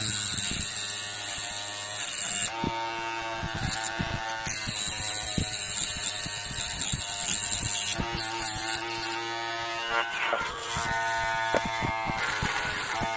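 Small DC motor of a homemade mini grinder running at high speed with a buzzing whine that shifts in pitch several times, with stretches of harsh high hiss.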